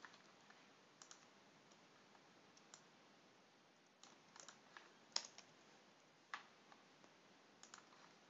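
Scattered faint clicks of a computer keyboard and mouse: a few isolated keystrokes, with a short cluster of them about four to five seconds in, over near-silent room tone.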